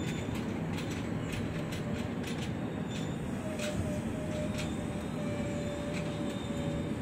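Indonesian economy-class passenger coaches rolling past on the track: a steady rumble broken by repeated clicks of the wheels over the rail joints. A faint steady whine comes in about halfway through and stops near the end.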